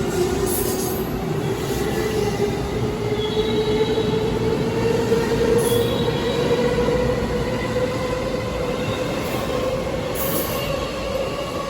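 Electric commuter train's motors whining in a steady tone that rises slowly in pitch throughout, as the train gathers speed, over a constant running rumble. A few brief high hissy squeals from the wheels or brakes come and go.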